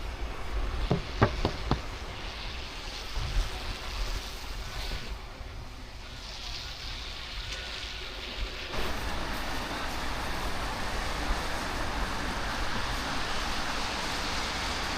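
Outdoor street ambience of steady hiss, like wind and distant traffic, with a few sharp knocks about a second in. The noise shifts abruptly and gets a little louder about nine seconds in.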